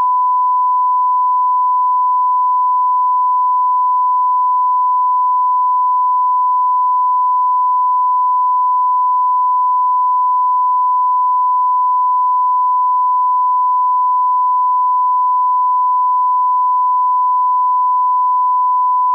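A 1 kHz line-up reference tone played with colour bars: one steady, unbroken pure beep that cuts off abruptly.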